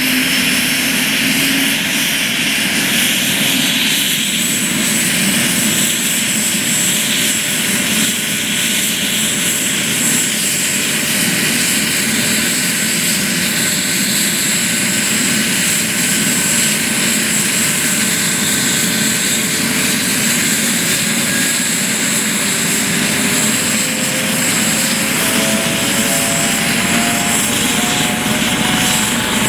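Twin-turbine Aérospatiale AS 365 Dauphin rescue helicopter running close by: a steady loud rush of rotor and turbine noise with a thin high whine, and several tones that climb slowly in pitch over the last several seconds.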